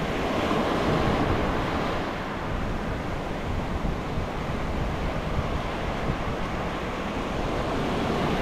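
Sea surf washing steadily onto the beach, with wind buffeting the microphone.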